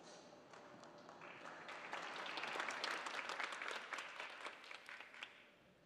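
Audience applause, fairly faint, swelling over the first couple of seconds and dying away about five seconds in.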